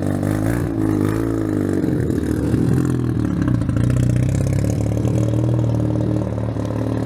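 Mazda FD RX-7's twin-rotor 13B rotary engine pulling away from a stop. The revs rise and fall unevenly for the first couple of seconds as the car moves off on the hard clutch, then settle into a steady note as it drives away.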